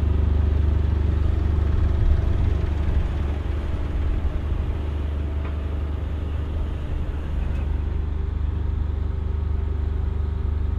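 Heavy diesel engine idling steadily with a deep, low rumble, easing slightly in level about three seconds in.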